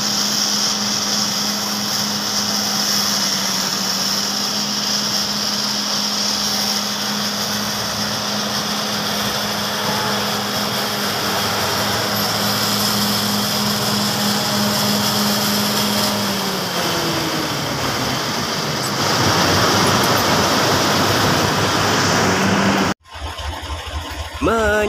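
Heavy diesel engine of a crawler bulldozer running steadily while hitched to a logging truck, its pitch dropping about two-thirds of the way through as it throttles down, then growing louder and noisier. It cuts off abruptly near the end, and singing begins.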